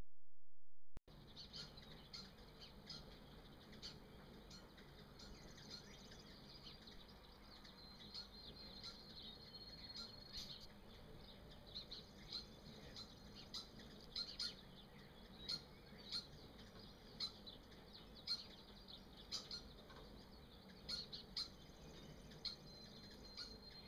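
Outdoor ambience of many short, high bird chirps scattered throughout, with a thin high steady trill that comes in twice for a few seconds.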